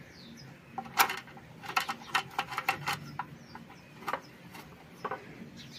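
Screwdriver tightening a steel screw into the plastic body of an electric iron: a string of irregular sharp metal clicks and ticks, most of them between about one and three seconds in, with a few more later.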